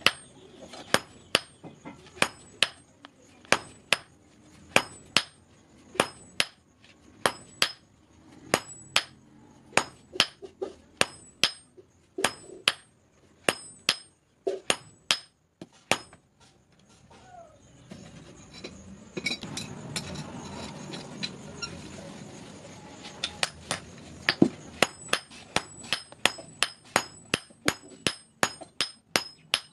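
A hand hammer is forging a red-hot steel knife blank on an anvil, striking about one to two times a second, each blow with a bright metallic ring. The blows stop for a few seconds past the middle, where a steady rushing noise takes over. Then the hammering resumes at a quicker pace.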